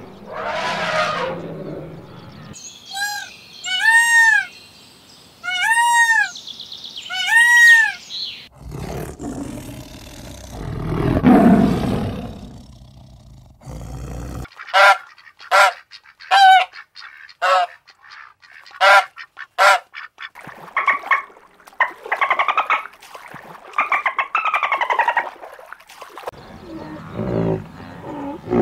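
A series of animal calls in several distinct parts. First come four arched calls that rise and fall in pitch, about a second and a half apart. Next a low, rough sound builds and fades, then a quick run of short, sharp pitched calls and chatter follows.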